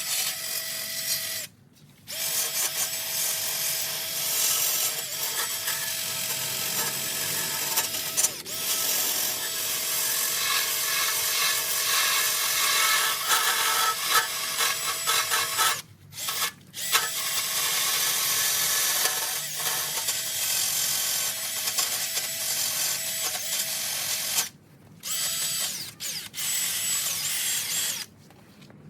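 Handheld electric power tool running steadily with a constant whine, switched off briefly about five times, near 2, 16, 25, 26 and 28 seconds in.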